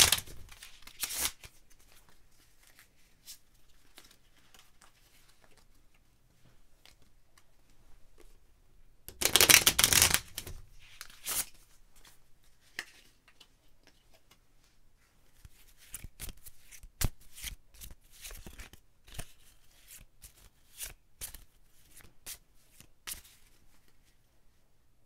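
A deck of playing cards being shuffled by hand: a loud riffle ending just after the start and another about nine seconds in, with soft handling noise between, then a run of sharp card clicks in the second half.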